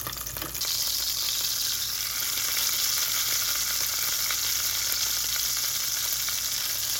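Ribeye steak sizzling in hot avocado oil in a cast-iron skillet, its edge held down in the oil with tongs to sear the side. The sizzle jumps louder about half a second in and then holds steady.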